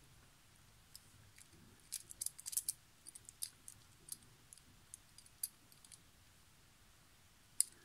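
Small clicks and taps of a die-cast toy car's parts being pressed and fitted together in the fingers: a quick cluster about two seconds in, scattered ticks after, and a sharper click near the end.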